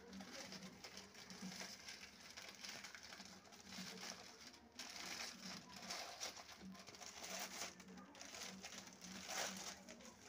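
Faint, irregular crinkling of a thin clear plastic bag wrapped around a small brass idol as it is handled.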